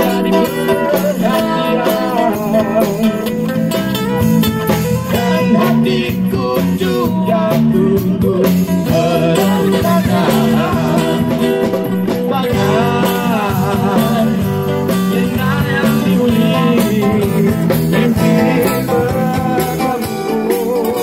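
A male singer sings a rock song through a handheld microphone and PA, with a live street band's guitar accompaniment underneath. The voice is described as nice ('suara sedap').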